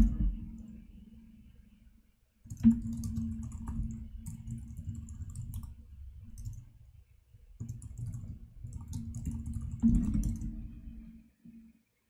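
Low rumbling noise on the microphone in three stretches, each a few seconds long, with sparse light clicks of a computer mouse and keyboard.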